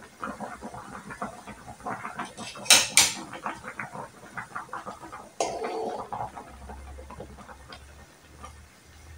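A metal ladle stirring fish and mung bean soup in an aluminium pan, knocking against the pan, with two sharp clanks close together about three seconds in and another knock a little past halfway. The simmering broth bubbles with a busy patter of small ticks underneath.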